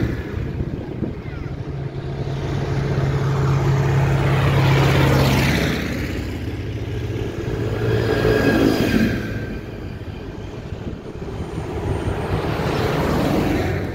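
Modern farm tractors' diesel engines driving past one after another. The sound swells and fades three times as each tractor goes by.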